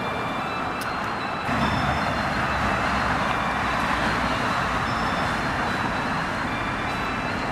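Steady roar of passing vehicle traffic, growing louder about a second and a half in.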